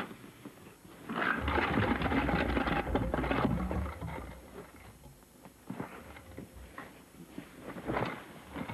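A cloth sack rustling and flapping as a person padlocked inside it struggles to get free. There is a loud stretch of thrashing in the first few seconds, then quieter, intermittent shuffling with brief surges.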